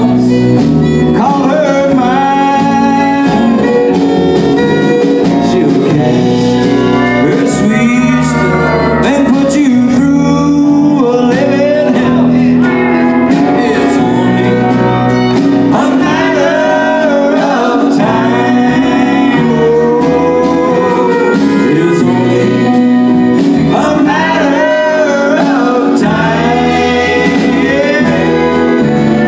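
Live country band playing a song with a male lead vocal sung in phrases over acoustic and electric guitars, bass, drums and fiddle, loud and steady through an amplified sound system.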